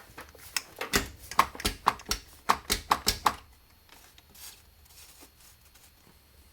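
Clamp hardware being handled: a quick run of about a dozen sharp clicks and knocks over roughly three seconds, then a few faint ticks.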